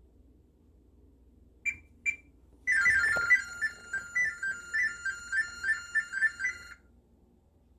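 LG microwave's Smart Diagnosis signal: two short beeps, then about four seconds of rapid, warbling tones that change pitch several times a second. This is the appliance sending its diagnostic data as sound to a phone held against it.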